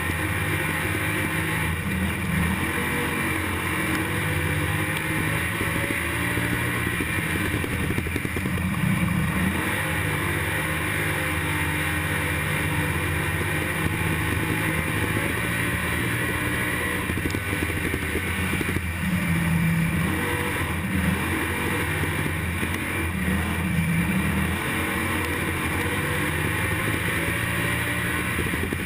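IMCA stock car's V8 engine heard from inside the cockpit at racing speed, rising and falling in pitch as the throttle goes on and off through the corners.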